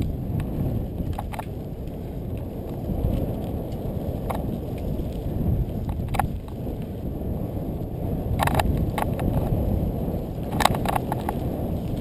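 Mountain bike rolling fast down a rocky dirt trail: a steady low rush of wind and tyre rumble, with sharp rattles and clacks from the bike as it hits bumps several times.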